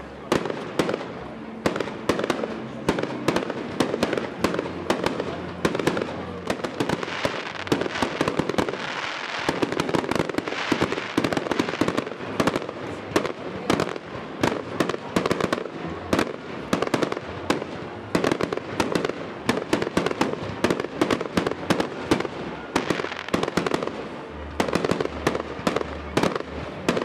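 Aerial fireworks display: shells bursting in quick succession, a dense, unbroken run of bangs and crackle with several reports a second.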